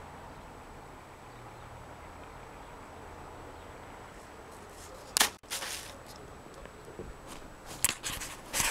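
Faint, steady outdoor background for about five seconds. Then come loud, brief rustling knocks, once and then several more near the end: handling noise of a handheld camera being moved and carried across grass.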